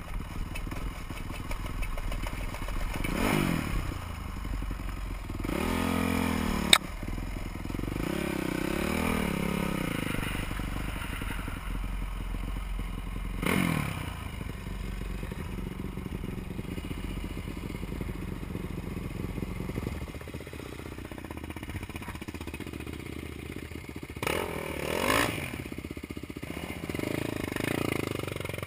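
Supermoto motorcycle engine heard from the rider's seat, running steadily and revving up and down several times. There is one sharp click about a quarter of the way through.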